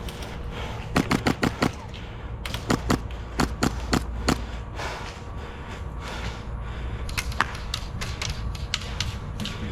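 Airsoft guns firing: a quick burst of rapid shots about a second in, more short bursts a couple of seconds later, then scattered single shots.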